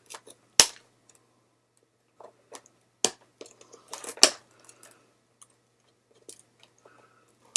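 Scissors snipping at stiff plastic toy packaging, with a few sharp snaps and crackling of the plastic between them as it is cut and pried.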